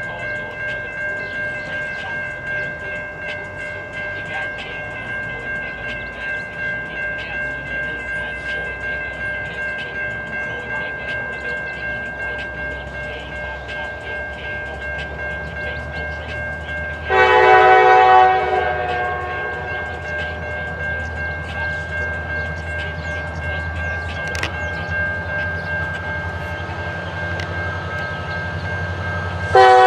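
Grade-crossing bell ringing steadily in a quick, even pulse, while an approaching freight train's diesel locomotive rumble builds. The locomotive's horn sounds one long blast about two-thirds of the way through and starts another at the very end, the warning for the crossing.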